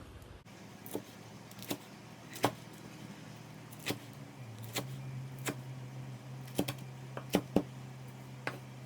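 A kitchen knife chopping silver beet on a cutting board: sharp knocks at irregular intervals, roughly one a second.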